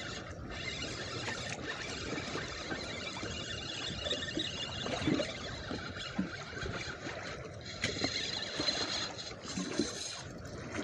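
Wind and choppy water slapping against a fishing boat's hull, a steady rushing noise with small irregular splashes.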